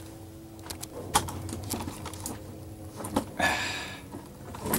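Camera and gear being handled: scattered clicks and light knocks, with a short rustle about three and a half seconds in, over a low steady hum.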